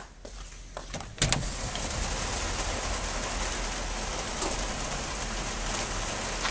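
Heavy rain pouring steadily. It is faint at first, then a clack about a second in, as a door to the outside opens, and the rain comes in suddenly loud.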